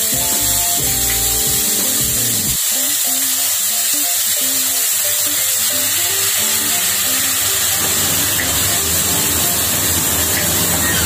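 Background instrumental music over a steady hiss of chopped onion and cumin seeds frying in hot oil in a kadai.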